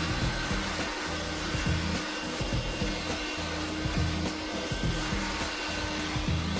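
Cordless 120 W handheld car vacuum cleaner running steadily, its motor giving an even airy rush with a steady hum. Background music plays underneath.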